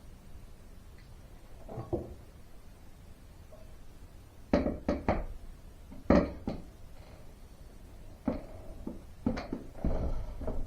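Storm door's loose metal bottom plate being knocked and worked down by hand: clusters of sharp knocks and clatters, thickest near the end.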